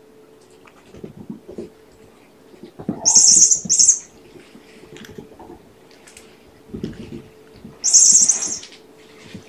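Kittens scrambling in rough play: soft thumps and scuffs of paws on carpet and a fabric cat bed being shoved about, with loud, scratchy rustles of claws on the fabric about three seconds in and again near the end.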